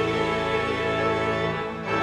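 Church choir and accompaniment holding a long chord at the end of a hymn line, dipping briefly near the end before the next line begins.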